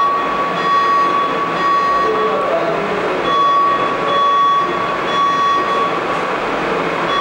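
Building fire alarm sounding a steady high tone that cuts out briefly about two and a half seconds in and then resumes: the evacuation alarm going off through the hotel.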